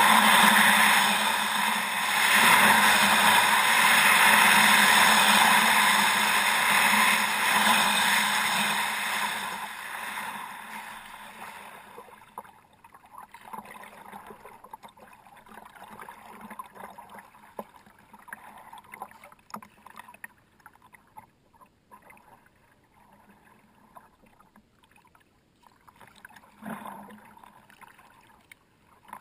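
Kayak on the water: a loud, steady rush of water for about the first ten seconds, fading to faint drips and small scattered clicks.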